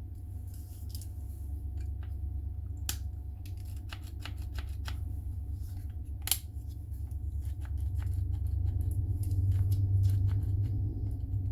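A cordless impact wrench being handled: a run of light clicks and taps, with two sharper knocks about three and six seconds in, over a low rumble of handling noise.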